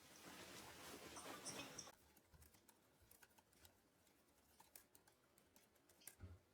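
Faint typing on a computer keyboard: light, irregular key clicks over a soft hiss that drops away about two seconds in.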